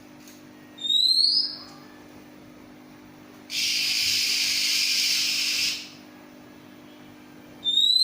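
Oriental magpie-robin (kacer) calling: a short rising whistled note about a second in, a harsh hissing note of about two seconds near the middle, and another rising whistle near the end.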